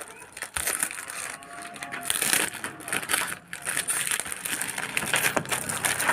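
Thin polythene wrapper and the sheets inside rustling in irregular handfuls as it is opened and pulled away from a pack of PVC print sheets.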